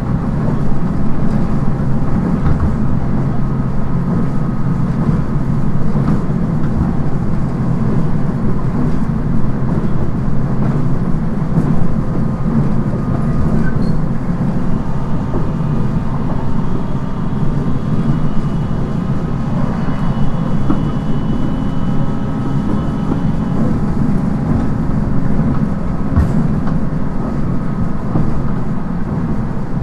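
Running noise of a JR East 719 series electric train, heard inside the car: a steady, loud rumble of wheels, running gear and motors at speed, with faint steady whining tones above it. This car is known for an unusual running noise.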